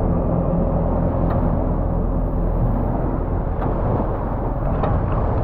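John Deere 6430 diesel tractor running as it drives past close by, followed by the beach-cleaning machine it tows, a steady rough rumble with a few faint clicks.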